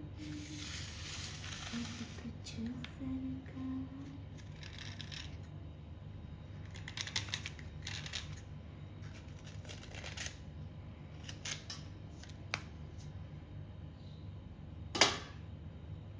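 Knife blade scraping along a wet, grooved white clay stick in a series of short strokes, with a long first stroke and a sharp click about fifteen seconds in that is the loudest sound.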